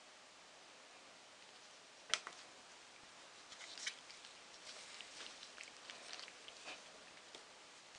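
A copper-nickel coin is picked up off a digital pocket scale's steel platform, with one sharp click about two seconds in. Faint scattered clicks and rustles follow as gloved fingers handle the coin.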